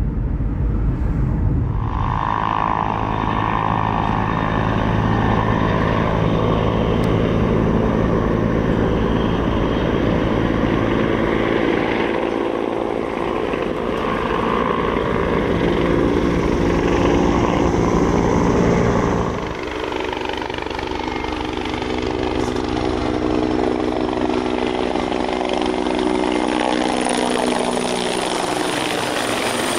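US Park Police helicopter running low over the river in a search, a steady rotor beat with a whine of engine tones. Past the middle the low beat fades and the tones slowly fall in pitch.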